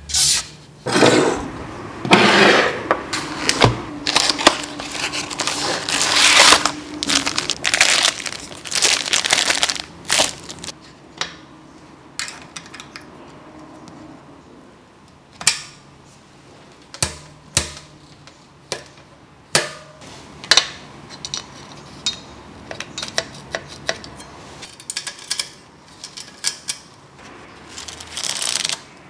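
Hands-on bicycle assembly: metal parts and tools being handled, with a busy stretch of rubbing and rattling in the first third, then scattered sharp metallic clicks and knocks as a Campagnolo Record rear derailleur is fitted to the frame.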